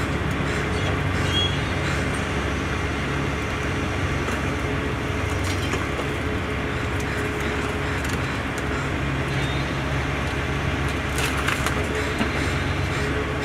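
Diesel engine of a knuckle-boom crane truck running steadily, with a few sharp knocks near the end.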